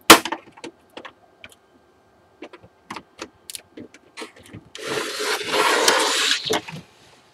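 The plastic back cover of a Samsung SyncMaster 226BW monitor being pried loose: a loud sharp crack of a snap-clip letting go right at the start, then scattered light clicks and taps. In the second half comes about two seconds of plastic scraping and rubbing as the monitor is slid round on the bench.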